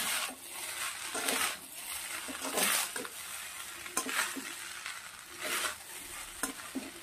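Fried rice being stirred and tossed in a metal kadai over a high flame: a steady frying sizzle with a scraping swish of the stirring stroke every second or so.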